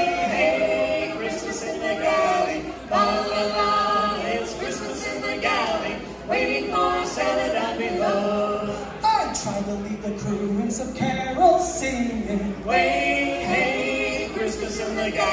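A choir singing a cappella, several voices together carrying a melody with no instruments.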